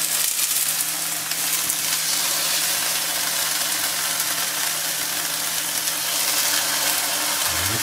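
Marinated mackerel fillets sizzling in a hot non-stick frying pan as they are laid in skin-side down one after another: a steady frying hiss.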